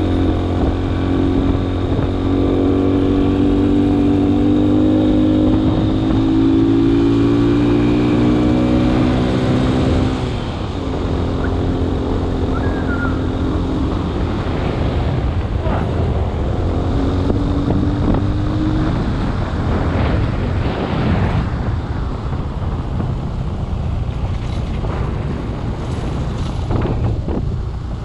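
Vehicle engine pulling along a rough dirt track, its pitch climbing steadily for about ten seconds and then dropping sharply at a gear change, before climbing briefly again. In the second half, knocks and rattles from the vehicle jolting over the rough surface mix with the engine.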